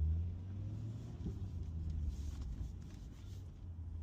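Chevrolet C8 Corvette's mid-mounted V8 idling, heard from inside the cabin as a low, steady hum that is loudest at the start and eases a little after two or three seconds.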